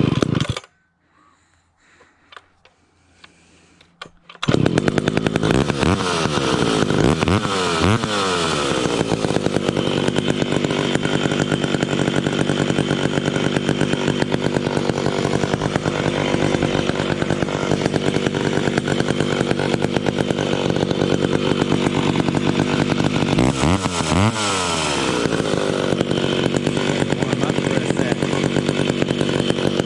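Cold McCulloch ProMac 55 two-stroke chainsaw with a custom exhaust, just choked. It fires briefly and dies, then after a few seconds starts and keeps running. It is revved up and down a few times soon after starting and again near the end, running steadily in between.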